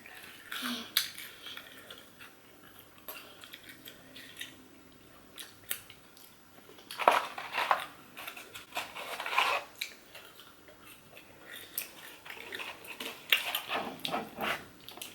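Close-miked eating of McDonald's food: chewing and biting, with scattered small clicks and crackles. The loudest bursts come about seven, nine and thirteen seconds in.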